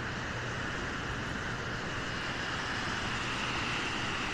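Steady rushing of wind and lake surf, an even noise with no distinct events.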